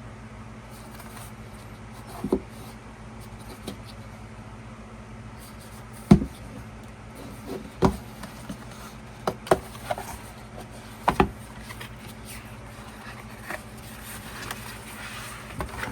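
Scattered taps, knocks and rustles of a boxed album being handled and opened, the sharpest knock about six seconds in, over a steady low hum.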